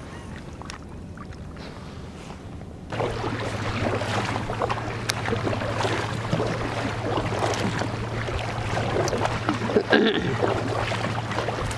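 Paddles of an Ocean Kayak Malibu 2XL tandem sit-on-top kayak dipping and splashing, with water washing along the hull, starting about three seconds in.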